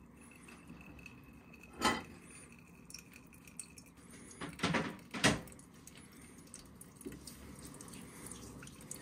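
Pour-over coffee dripping through a paper filter into a glass server, with a few light clinks of metal and glass, one about two seconds in and a small cluster near the middle.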